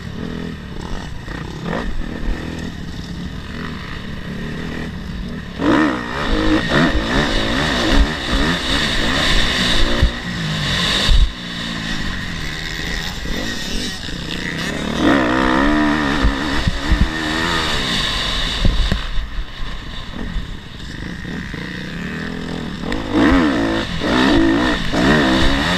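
Dirt bike engine ridden hard on a motocross track, the pitch rising and falling with the throttle, with sharper runs of revving about six seconds in, around fifteen seconds and near the end. Heard from a helmet camera, with wind rumble on the microphone underneath.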